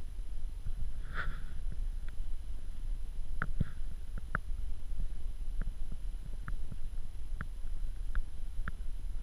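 Low, steady rumble on the microphone, with scattered short crackles and clicks from dry leaf litter, irregularly spaced and including a slightly longer rustle about a second in.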